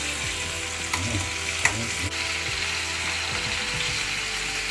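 Beef short ribs sizzling as they brown in hot olive oil in a pan, with two sharp clicks about a second in and just under two seconds in.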